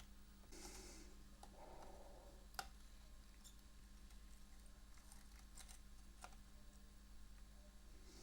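Near silence with a low steady hum and a few faint small clicks, the clearest about two and a half seconds in.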